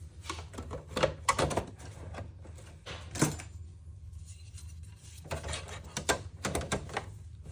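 Irregular clicks and knocks of PS5 console parts being handled and fitted back together during reassembly, the loudest a little after three seconds, over a steady low hum.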